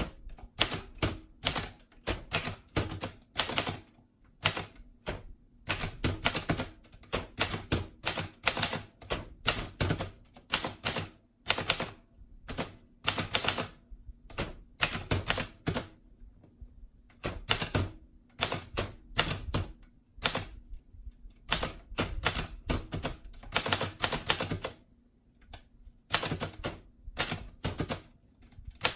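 Keys of a Groma Kolibri ultraslim manual typewriter striking the platen in quick runs of clacks with short pauses, as a mixed uppercase and lowercase line is typed.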